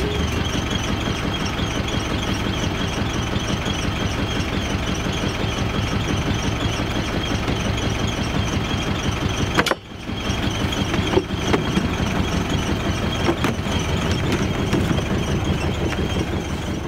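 Fishing boat's engine running steadily with a fast, even chug. It drops out briefly about ten seconds in, and a few knocks follow afterwards.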